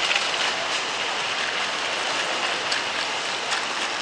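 Steady noisy hubbub of a busy airport terminal concourse: crowd, rolling luggage and air handling blended into an even hiss, with a few faint clicks.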